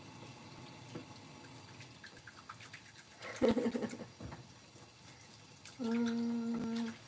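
Udon broth simmering and bubbling in a small metal pot while chopsticks stir and loosen frozen udon noodles in it, with a brief louder stir or scrape about halfway. Near the end a steady pitched tone sounds for about a second.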